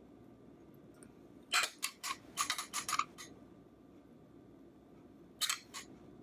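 Metal spoon clicking and scraping on a plate as diced strawberries are spooned onto it: a quick run of sharp clicks about a second and a half in, and two more near the end.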